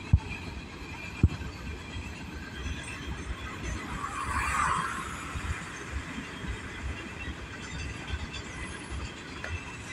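Freight train's hopper cars rolling past over the rails, a steady low rumble with irregular clanks and two sharp bangs in the first second and a half. About four seconds in, a brief screeching burst from the wheels rises over the rumble and fades within a second.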